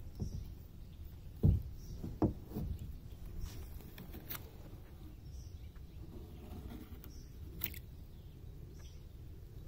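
Two sharp low knocks about one and a half and two and a quarter seconds in, a kayak's hull being bumped, over a steady low rumble.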